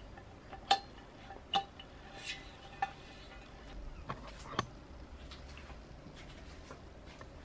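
Scattered light metallic clinks and knocks from aluminium frame profiles and steel levelling feet being handled. There are about six, the sharpest about a second in, with a quiet gap after the last one.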